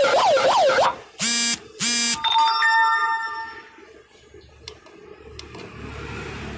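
A handheld 35 W megaphone plays its built-in siren effects through its horn speaker: a fast up-and-down siren wail that stops about a second in, then two short loud buzzy beeps, then a ringing chime that fades out. After that only a faint low hum remains.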